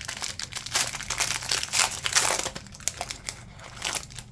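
Crinkling and crumpling of a trading-card pack wrapper being handled, loudest about two seconds in and dying away near the end.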